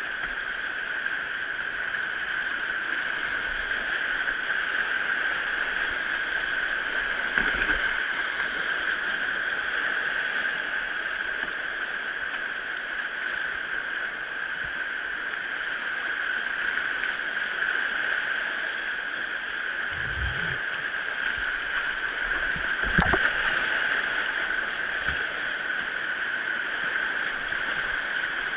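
Steady rushing of river water, with a few dull knocks, one near the start and two later on.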